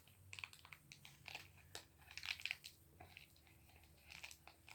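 Thin see-through plastic blind bag crinkling and crackling as it is opened by hand, in a run of quiet, irregular crackles that is loudest about two seconds in.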